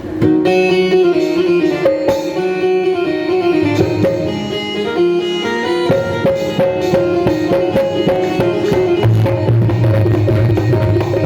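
Music played on a Roland Fantom-X6 keyboard: a plucked-string melody over a tabla-like percussion rhythm, starting suddenly right at the start. A strong low bass line comes in about nine seconds in.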